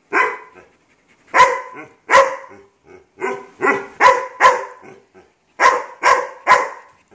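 A tan short-coated dog barking repeatedly: about ten short, sharp barks in uneven groups of two or three. It is demand barking for a treat.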